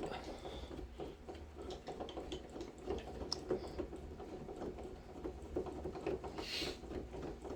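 Phillips screwdriver turning out a long, thin-threaded screw of an interior door handle by hand: a steady run of small clicks and ticks as the screw and handle parts turn and rattle.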